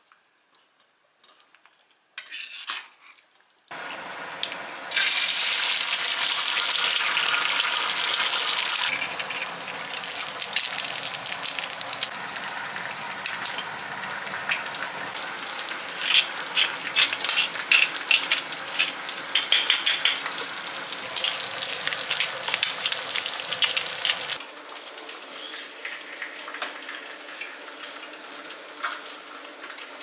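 Eggs frying in oil in a small square pan on a gas burner, sizzling and crackling. After a quiet start with a few clicks, a loud hiss comes in about five seconds in, then settles into dense crackling and spitting that grows quieter near the end.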